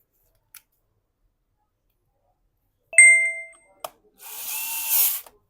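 A sharp metallic clink that rings briefly about three seconds in, another small click, then about a second of a small electric screwdriver whirring as a screw is driven back into the laptop case.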